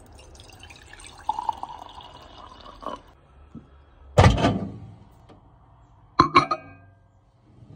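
Water poured from a plastic jug into a glass jar, a steady trickle that stops about three seconds in. A loud knock follows about a second later, and near the end come two sharp clinks with a short ring as the glass jar is set down on the microwave's glass turntable.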